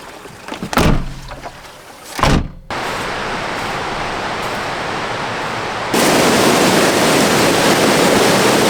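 Two dull thumps, then the steady rush of a stream running high with snowmelt, which starts abruptly about two and a half seconds in and gets louder about six seconds in.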